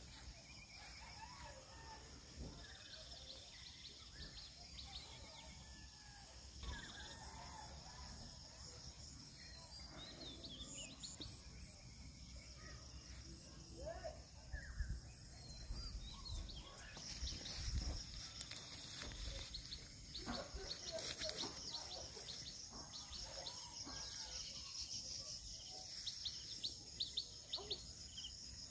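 Faint rural ambience: a steady high-pitched insect drone with birds chirping here and there, the chirps more frequent in the second half.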